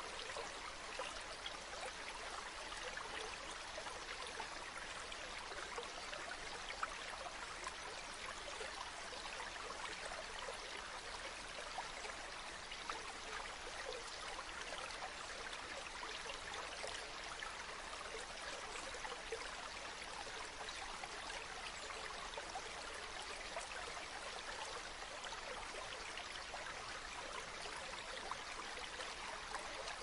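A stream flowing steadily, an even rush of water with many small trickling splashes.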